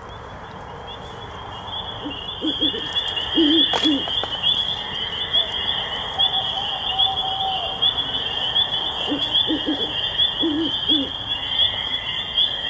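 Owl hooting in two short series several seconds apart, over a steady, fast, high chirping of crickets.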